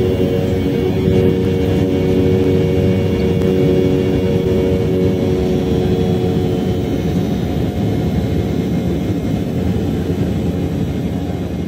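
Embraer E190's twin GE CF34 turbofan engines heard from inside the cabin during the climb after takeoff: a loud, steady rumble with a few steady tones in it, the tones fading in the second half.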